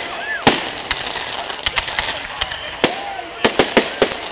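Fireworks display: aerial shells bursting overhead with sharp, irregular bangs, the loudest about half a second in and a quick run of five bangs near the end.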